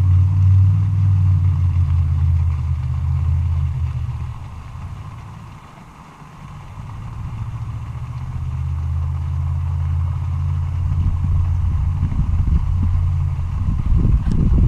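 Low engine hum of passing road traffic, fading away about six seconds in and then building again as another vehicle approaches.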